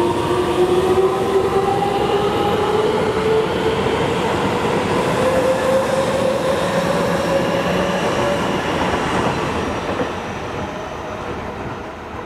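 Seibu 30000 series electric train pulling away: its traction motors whine in a tone that climbs slowly in pitch as it gathers speed, over the rumble of wheels on the rails. The sound fades from about ten seconds in as the train recedes.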